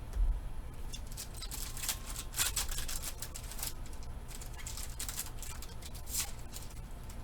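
Trading cards and their pack being handled: a run of short, scratchy rustles as the cards slide against each other and the wrapper, after a low thump at the very start.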